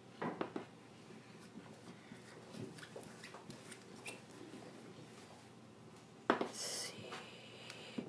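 Faint scraping and rubbing as gold chalk paste is scooped from its small jar and spread over a mesh silkscreen transfer on a wooden pumpkin, with a brief louder scrape about six seconds in.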